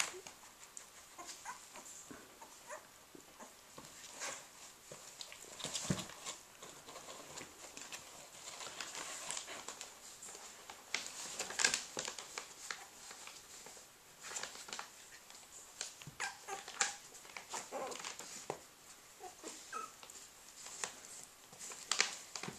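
Three-week-old puppies squirming and playing, with faint squeaks and whimpers over scattered scratching and shuffling on soft bedding.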